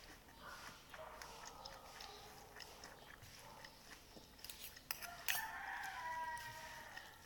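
A long pitched animal call, heard twice: once faintly in the first couple of seconds and again, louder and slightly falling, for nearly two seconds near the end. Scattered sharp clicks sound throughout.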